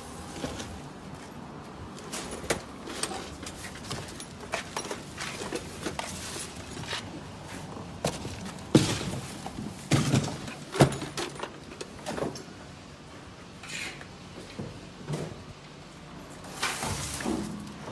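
Irregular knocks, clicks and clatter, as of objects being handled, with a few louder knocks about halfway through.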